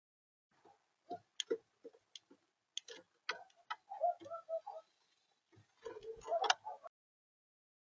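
Irregular sharp taps and clicks on a bird feeder, as from a visitor pecking at seed on the feeder, in uneven clusters with a few short low squeaks about four seconds in; it stops suddenly about a second before the end.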